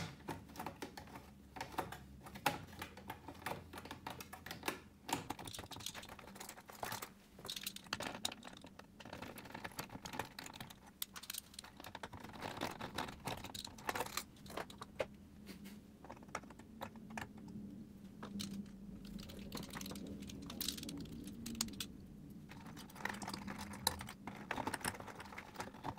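Screwdriver unscrewing the small screws that hold the old speaker terminal block to the metal rear panel of a Pioneer SA-7800 amplifier, and the parts being handled: a run of irregular light clicks and taps.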